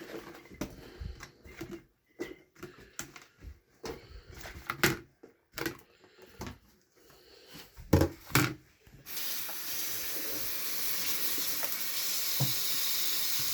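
Scattered light knocks and clatter of small items being handled and set down. About nine seconds in, a tap is turned on and water runs steadily into the sink.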